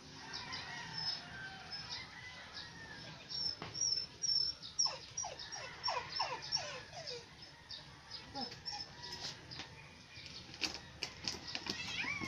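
Newborn puppy squealing in runs of short, high, falling squeaks, thickest around the middle, while the mother dog licks it.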